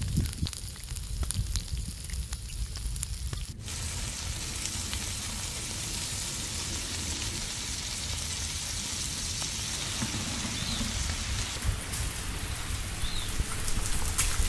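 Vegetables sizzling in a frying pan over a wood fire. For the first few seconds the sizzle is fainter, with scattered small crackles; after that it settles into an even hiss.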